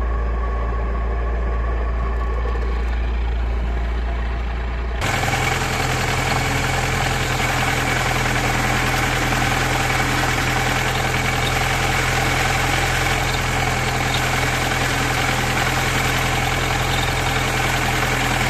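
VAZ 2108/2109 engine idling steadily. About five seconds in the sound changes abruptly to a louder, brighter running with a steady whine over it.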